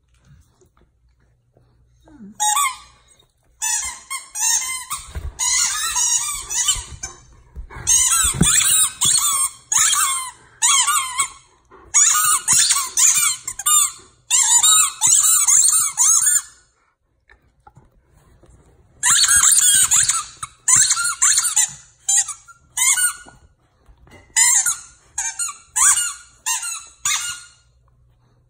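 A dog-toy squeaker, pulled out of a stuffed animal, being chewed by a corgi. It squeaks in rapid runs of short, high squeaks, in two long bouts with a pause of a couple of seconds between them.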